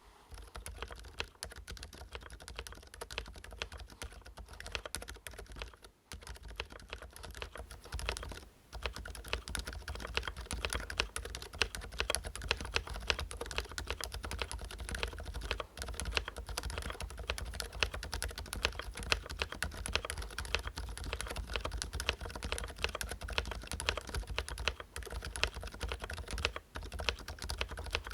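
Fast, continuous typing on a Ducky One 2 Mini mechanical keyboard with lubed Cherry MX Silent Red switches: a dense stream of soft keystrokes, with no spring ping because the springs are lubed. The typing stops briefly about six seconds in and again about eight and a half seconds in.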